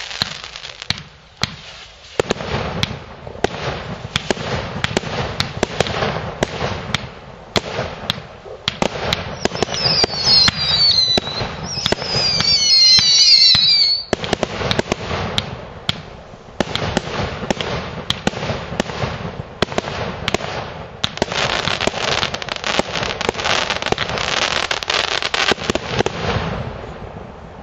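GIMAT TB222 Tropic fireworks battery (cake) firing: a rapid run of launch thumps and bursts with dense crackling. About ten seconds in come several shrill whistles falling in pitch, the loudest stretch. The firing dies away near the end.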